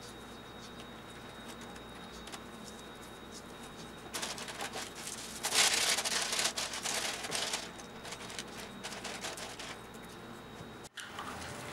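Wooden skewer sticks being stirred and shuffled by hand in a plastic tub of dye water: a wet rustling and clicking that grows louder for a few seconds past the middle, then settles down.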